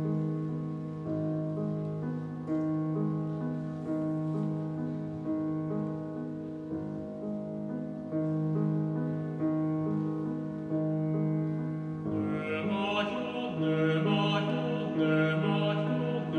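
Grand piano playing a slow, gentle lullaby introduction of sustained notes; about twelve seconds in, a classical singing voice with vibrato enters over the piano.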